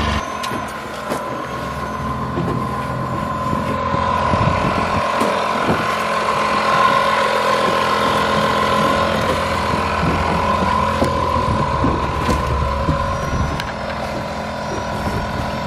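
Outboard motor running steadily on a boat under way, with a steady high hum over low engine rumble, wind and water noise.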